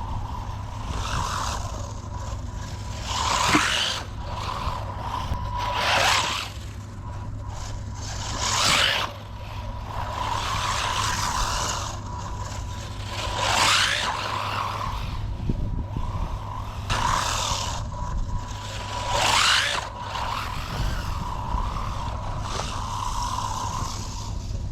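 WLtoys 144001 RC car with a brushed electric motor being driven fast, its motor and gears whining and surging up and down in pitch about half a dozen times as it accelerates and passes.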